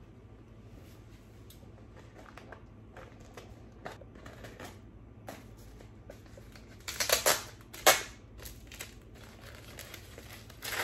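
Kraft-paper plant sleeve crinkling and rustling as it is handled, in scattered short crackles, loudest in a cluster about seven to eight seconds in.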